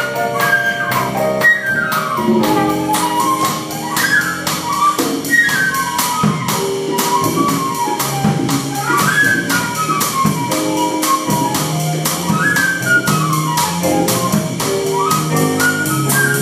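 Live jazz: a flute plays quick melodic runs that climb and fall, over congas and drums.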